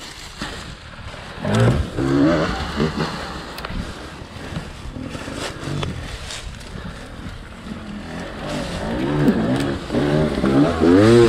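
Off-road dirt bike engine revving in repeated blips, with a louder run of rising revs near the end.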